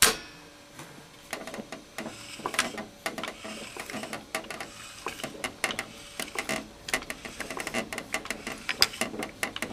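The unpowered gear, cam and lever mechanism of a 1973 Seeburg jukebox cycling as it is worked by hand: a sharp click as the switch drops, then a run of irregular clicks and metallic clatter. A louder click comes near the end.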